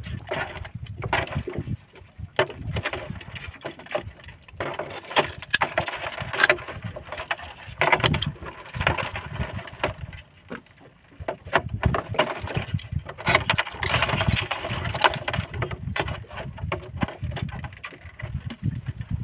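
Irregular knocks and clatter over a rushing noise aboard a small fiberglass boat afloat, with a quieter lull about ten seconds in.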